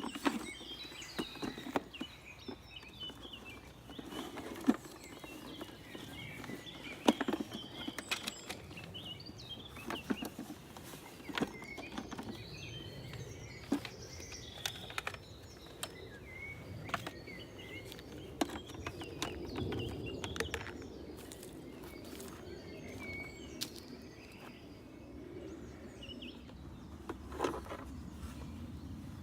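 Things being handled and lifted out of a bag: scattered knocks and clicks with some handling noise, while birds chirp in the background.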